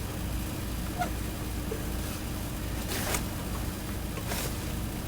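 An engine running steadily with a low hum, with a few faint knocks about one, three and four seconds in.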